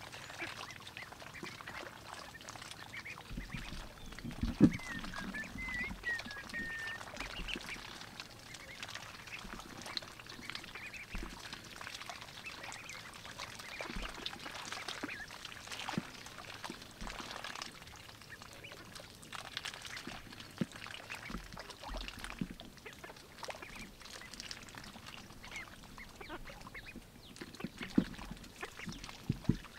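White ducklings dabbling in shallow water at the edge of a grassy bank: many small irregular splashes and bill clicks, with a wavering duck call about five seconds in and one sharper knock just before it.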